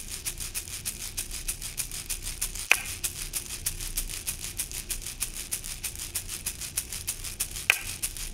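Minimal electronic music: a fast, even shaker-like tick, about six or seven a second, over a low bass pulse, with a sharper accent hit twice, about five seconds apart.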